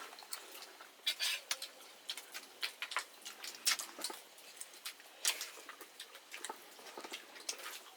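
Eating sounds at close range: irregular small clicks and smacks of someone chewing and handling food, a few each second.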